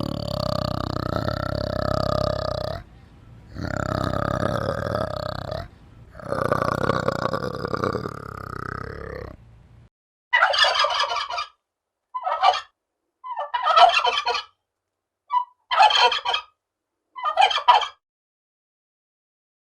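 Three long, drawn-out animal calls, then a series of about six short, rattling turkey gobbles over a silent background.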